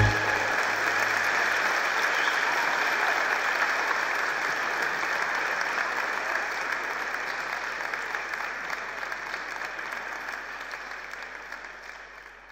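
Audience applauding with steady clapping that slowly fades out near the end.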